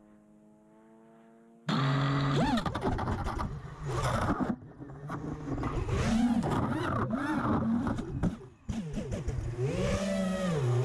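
FPV quadcopter's brushless motors and propellers: after a faint steady hum, they throttle up suddenly about two seconds in and keep whining loudly, the pitch rising and falling with each stab of throttle, with two brief drop-outs of power.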